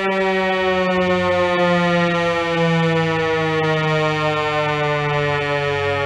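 Federal Signal 508-128 electromechanical warning siren sounding a loud, even tone whose pitch slowly falls. Its broken rotator leaves the horn facing one way, so the sound holds steady in loudness instead of sweeping.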